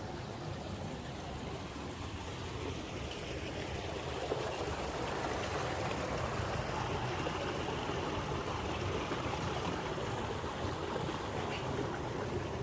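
Sea waves washing steadily, a rushing noise that grows louder about four seconds in.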